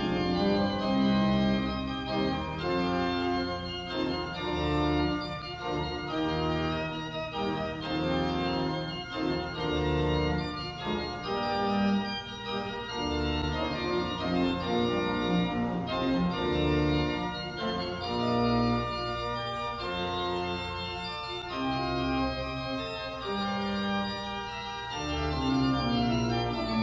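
Organ playing a slow piece in held chords, with the bass notes moving about once a second.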